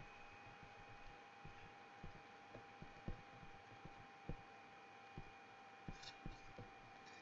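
Faint, irregular soft taps of a stylus on a tablet screen during handwriting, over a low steady electrical hum.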